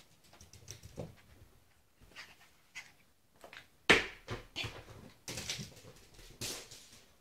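A Yorkshire Terrier's claws tapping and scuffing on a hardwood floor as it runs with a rubber Kong toy. A single sharp knock about four seconds in is the loudest sound, followed by several shorter knocks and scuffs.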